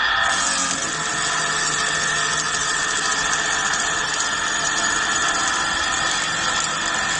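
SUNTEC multihead CNC wood lathe running as a tool works the spinning wood. A steady high whine gives way, about a third of a second in, to a loud, even hiss over a low steady hum.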